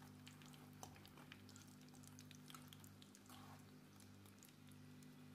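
Near silence: a faint steady hum with scattered faint crackles from breaded rolls frying in hot oil in a pan.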